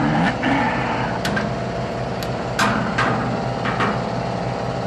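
A steady low mechanical hum with several sharp knocks and clanks, like metal parts or tools being handled.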